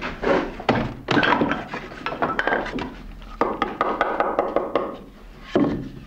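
Hollow poplar-wood clogs knocking and scraping against each other and a wooden workbench as they are handled: a run of dull wooden thunks and rubs, with one sharp knock near the end.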